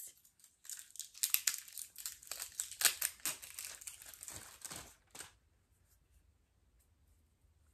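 A small cardboard blush box and its packaging being handled and opened: a run of crinkling, scratchy rustles that stops about five seconds in.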